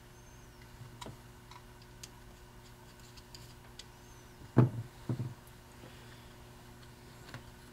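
Workshop handling sounds while an old tractor starter is taken apart: a light click, then two sharp knocks about half a second apart around the middle, as a screwdriver and metal starter parts knock on the workbench.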